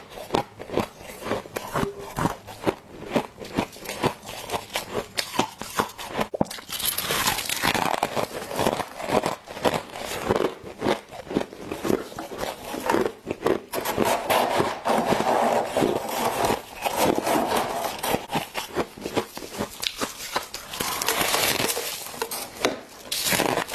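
Close-miked chewing of crunchy deep-freezer frost: rapid, dense crackling crunches. In the middle, gloved hands scrape and gather frost from the freezer's walls.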